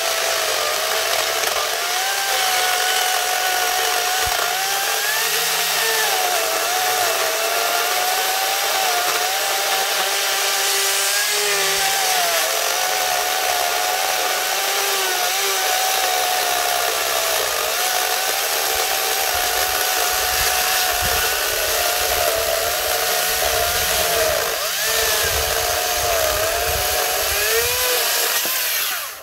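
Makita cordless battery chainsaw cutting a round off a log. Its electric motor whines steadily, the pitch wavering a little under load as the chain cuts the wood, then stops suddenly at the end of the cut.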